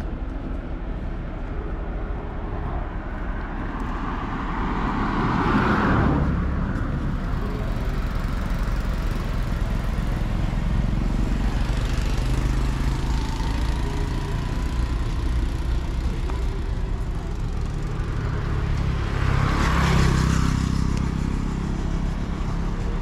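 Two motor vehicles pass on the road, each swelling up and fading away, the first about six seconds in and the second near the end, over a steady low rumble.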